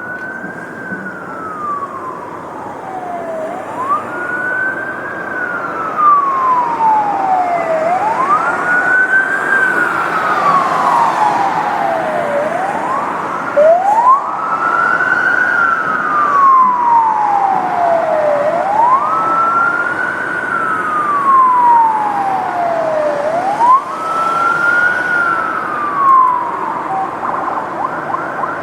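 Police car siren in its wail mode: each cycle rises quickly and falls slowly, about every five seconds, over road noise. It gets louder about six seconds in, and near the end switches to a much faster warble.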